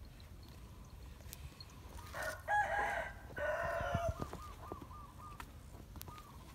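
A rooster crowing once, a call of about two seconds in two parts, starting about two seconds in and the loudest sound here. It is followed by a run of short, quick chirps.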